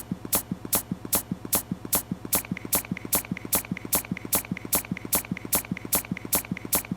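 Intro of an electronic music track: a steady beat of sharp clicks about two and a half a second, with short pitched blips between them; a high tone joins about two seconds in.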